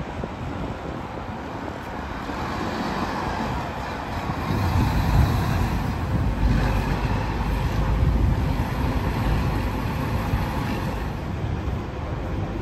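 City bus pulling away and driving past close by. Its engine is loudest about five seconds in and eases as it heads off up the street, with a car passing and general traffic noise.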